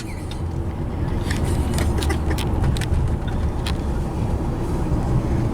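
Road noise inside a moving car's cabin: a steady low engine and tyre rumble, with a few faint ticks.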